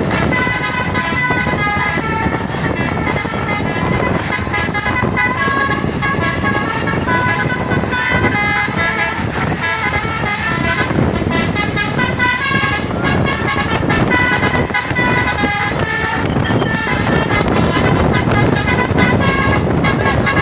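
Tour bus's basuri 'telolet' melody horn playing quick tunes of switching high notes, over the rumble of a running bus.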